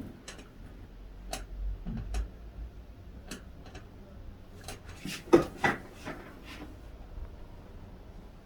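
Scattered light clicks and ticks during a hands-on chiropractic treatment, with two louder pops close together about five and a half seconds in.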